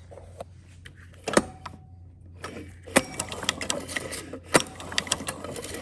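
Sharp metallic clicks and light rattling of hand work on a small engine's top end during teardown. A few loud single clicks stand out, and from about halfway in the clicking and rattling become steady and busy, over a low steady hum.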